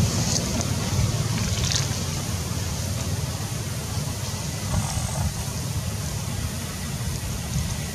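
Wind buffeting the microphone: a steady, uneven low rumble with a few faint ticks above it.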